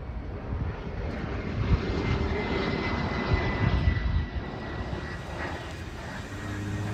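Jet airliner passing low on approach: a broad engine rumble with a steady high whine that swells about two seconds in and eases off after about four seconds.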